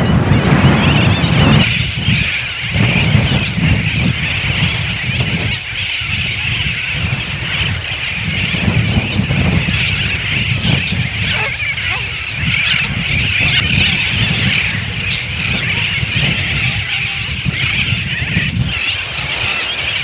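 Seabird colony of greater crested terns and brown noddies calling: a continuous chorus of many harsh, overlapping calls, with wind and surf noise underneath.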